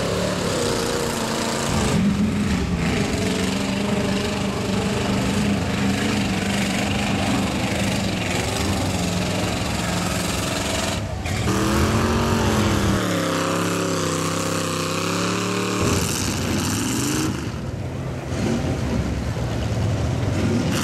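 Pickup truck engines revving hard as the trucks drive through a mud pit, the pitch climbing and dropping as the throttle is worked, over the noise of tyres churning through mud and water.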